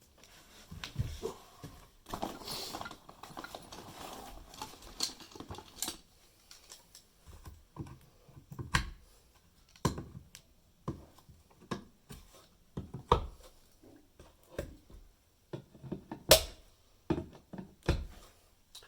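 Old carpet staples being pried out of wooden floorboards with a hand tool: irregular sharp clicks and knocks, with a stretch of scraping about two to six seconds in.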